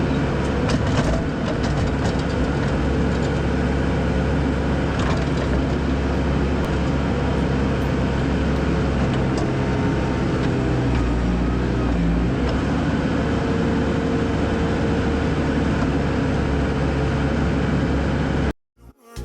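Bobcat skid-steer diesel engine running steadily under load while grading, with scattered cracks and crunches of dirt and weeds. It cuts off suddenly near the end.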